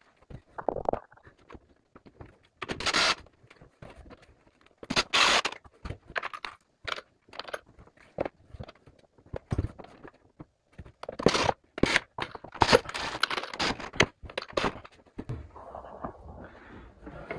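Irregular scraping and knocking from hand work on a bathroom vanity unit and its wall brackets against the tiled wall, in short bursts with pauses between, the loudest a few seconds in and again past the middle.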